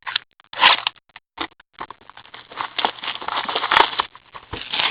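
Foil trading-card pack wrappers crinkling and tearing open, with cards being handled. There is a loud crackle a little after the start, then dense crinkling from about two seconds in, over a faint low hum.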